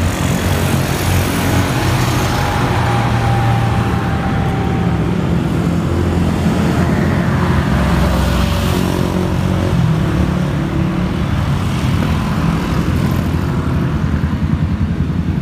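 Road traffic passing close by, mostly motorbikes. A steady low rumble with engine noise swelling and fading as vehicles go past.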